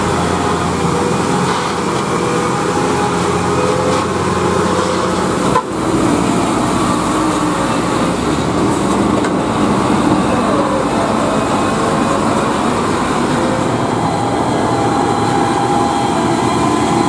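UD Quester trucks with GH8E six-cylinder diesel engines running on the road, one clip after another, with an abrupt cut to a different truck about five and a half seconds in.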